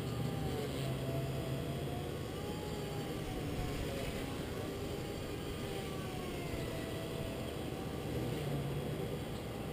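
Blade 130X electric RC helicopter flying overhead: a steady whine from its motor and rotors, wavering up and down in pitch as it manoeuvres.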